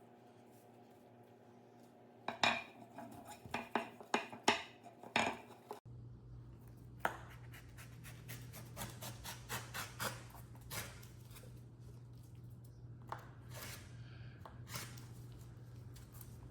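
Small metal objects clinking and scraping: a quick run of sharp clinks a couple of seconds in, then scattered lighter clicks and rubbing over a steady low hum.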